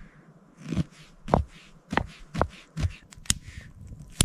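Stones knocking and clacking as they are set down one after another to ring a campfire, about two knocks a second.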